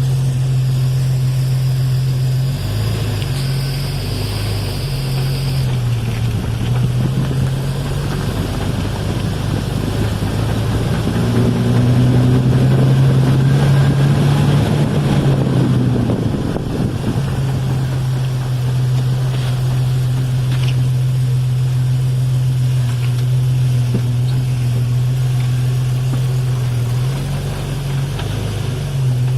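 Four-wheel-drive vehicle on the move, with a low steady drone and a repeated clunk from the drivetrain, a little under four clunks per tire rotation. The owner places the fault between the transmission output and the differential inputs, not in the U-joints.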